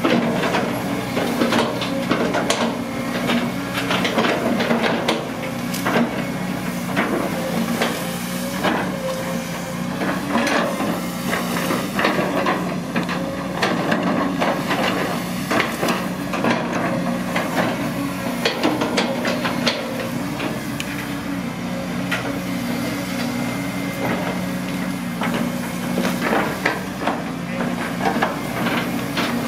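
Caterpillar long-reach excavator's diesel engine running steadily, with frequent sharp clanks and knocks from the bucket and boom linkage as it digs.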